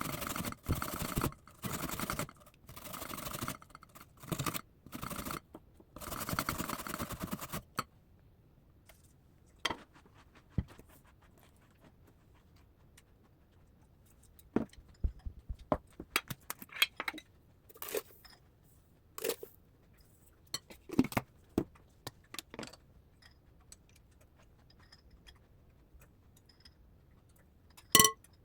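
Kitchen food-preparation handling sounds: a run of short scraping, rustling bursts with gaps between them, then about eight seconds in, scattered light clicks and knocks.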